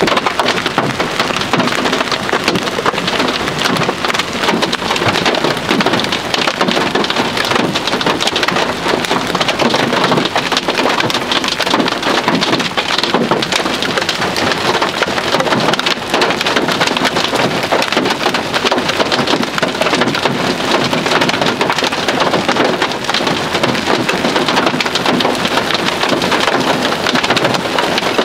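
Heavy rain and large hailstones falling onto grass, soil and road: a steady, dense hiss peppered with many small impacts.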